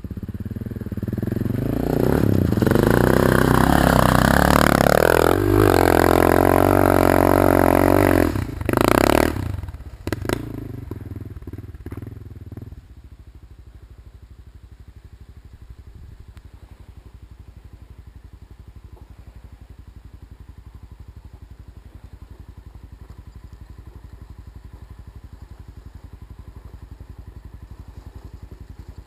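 Honda XR650L's single-cylinder four-stroke engine through an FMF Powercore exhaust, revving hard with its pitch climbing and falling for about ten seconds and peaking loudly just before it drops away. After that, a faint, steady low engine rumble.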